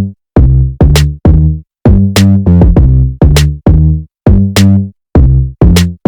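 Electronic background music: a drum-machine beat of deep, punchy pitched hits, about two a second, each cut off by a short silence.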